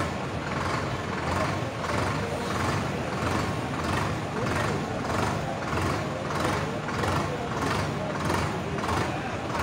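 Farm tractor's diesel engine running as the tractor drives slowly in a convoy, heard from on board, with an even pulsing about twice a second.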